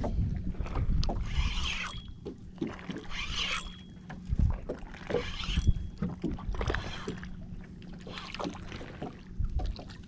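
Water sloshing against the hull of a small fishing boat in surges about every two seconds, with wind on the microphone and a low steady hum that fades out about four seconds in.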